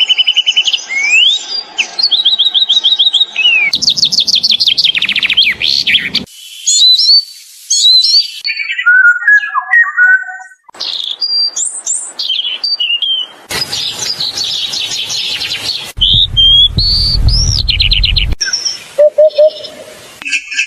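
A run of short birdsong recordings from several different birds, cut one after another every two to three seconds: chirps, fast trills and whistled notes that rise and fall.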